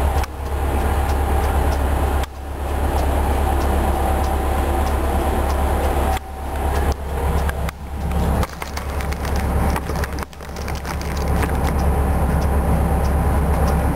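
Detroit Diesel 8V71 two-stroke V8 in a 1972 Flxible New Look bus, running with a deep steady drone heard from inside the bus. Its sound drops off sharply and builds back up several times, about 2 s in, between about 6 and 8.5 s, and near 10 s, with faint rattling ticks over it.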